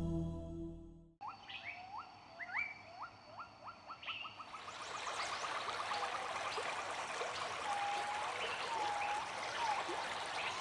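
Bird calls in a forest soundscape: a run of short rising notes that speed up, then a few whistled notes. A steady rush, typical of a running stream, builds in about four seconds in. Soft new-age music fades out about a second in.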